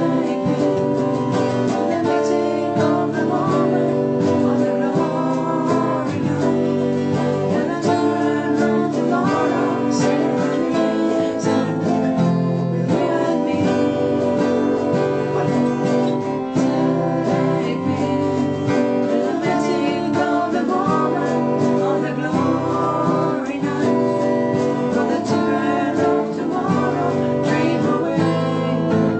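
An acoustic guitar strumming chords while an Ibanez electric guitar plays along, two guitars making steady music.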